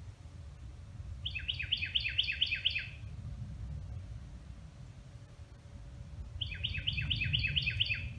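A songbird singing two phrases, each a quick run of about seven falling notes lasting a second and a half, the second phrase coming about four seconds after the first. A steady low rumble runs underneath.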